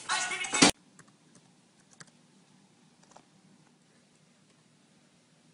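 A loud sound cut off abruptly under a second in, then a few faint, scattered clicks of fingers typing on a laptop keyboard.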